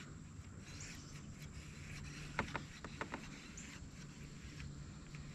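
Faint quiet background with a quick cluster of five or six small sharp clicks or knocks about two and a half to three seconds in.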